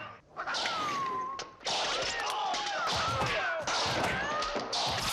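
Nunchaku being swung fast in a martial-arts film sound effect: a rapid, continuous run of whooshing swishes that becomes dense from about two seconds in.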